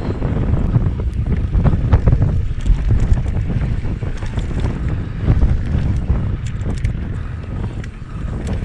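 Wind buffeting the action camera's microphone as a downhill mountain bike rolls fast over a dirt trail, with a low tyre rumble and scattered clicks and rattles from the bike.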